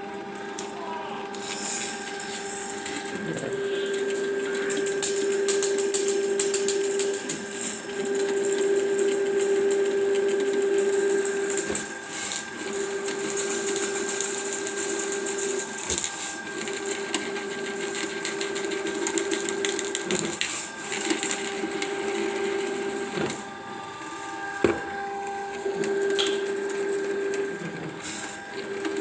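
Ridgid electric drain-cleaning machine running as its cable works through a clogged pipe: a steady motor hum that breaks off briefly every few seconds, with a few sharp knocks.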